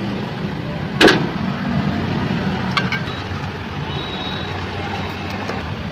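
Steady street traffic noise, with one sharp click about a second in and a couple of faint ticks a little later.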